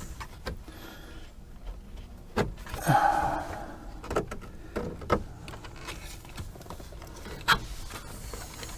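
Handling of wiring connectors and a plastic dash cover behind a boat's ignition switch: a series of irregular sharp clicks and knocks with light rustling of the wires.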